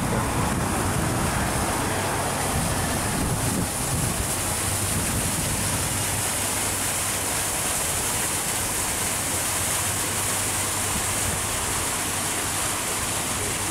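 Steady, even rushing noise, high and hissy, with a low rumble underneath and no clear events.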